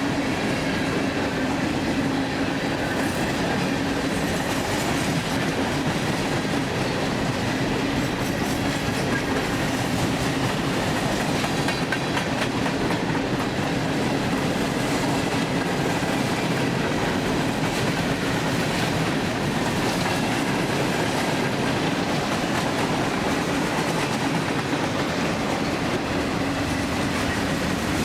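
Long freight train of mostly empty grain hopper and coal cars rolling past, the cars' wheels running on the rails in a steady, unbroken rumble with a constant hum underneath.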